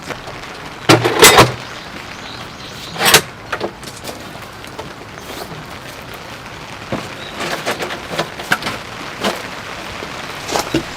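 Steady rain hiss, with sharp knocks and clatters of handling: the loudest about a second in and again about three seconds in, then a run of lighter ticks and taps near the end.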